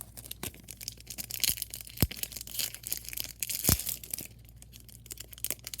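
Foil wrapper of a Yu-Gi-Oh trading-card booster pack crinkling and tearing as it is handled, with many small crackles and a couple of sharper clicks.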